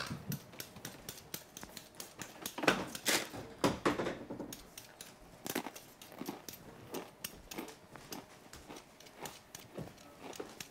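Potatoes being peeled and cut by hand: irregular small scrapes and knife clicks on a cutting board, with a few louder strokes about three seconds in.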